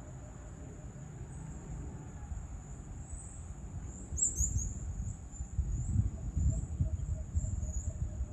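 Outdoor ambience: a steady high-pitched insect buzz throughout, with a short bird call of a few quick falling chirps about four seconds in. A low rumble underneath grows louder in the second half and is the loudest sound.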